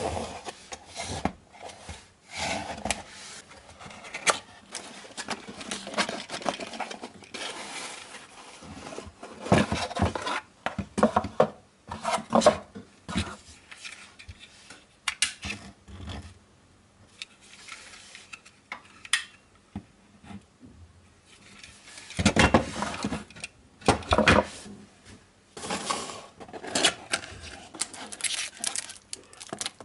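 Unboxing handling noise: cardboard boxes sliding and rubbing on a wooden table and a metal-cased 12 V switching power supply being turned over and set down, giving irregular rubbing, scraping and sharp knocks, loudest about ten and twenty-two seconds in.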